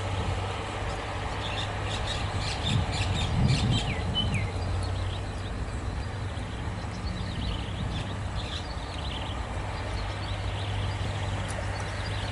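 Birds chirping in short calls over a steady low hum, with the chirps busiest in the first few seconds and a brief low rumble around three to four seconds in.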